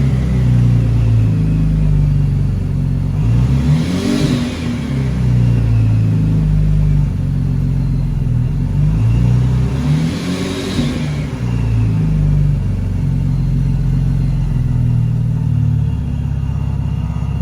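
Supercharged 3.6-litre V6 of a 2013 Cadillac CTS coupe running, blipped with the throttle twice, about four and ten seconds in, then settling back to idle.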